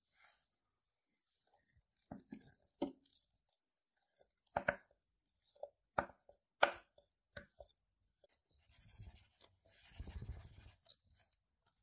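Quiet kitchen handling sounds: a series of soft knocks and scrapes as thick lentil batter is scraped from a glass bowl into a parchment-lined metal cake tin. Near the end comes a longer rustling rumble as the filled tin is moved and jiggled on the worktop.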